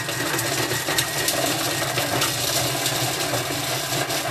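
Thermomix running its blade at speed 5 to chop slices of chorizo: a steady whir with a rapid clatter of pieces against the blade and bowl, cutting off suddenly near the end.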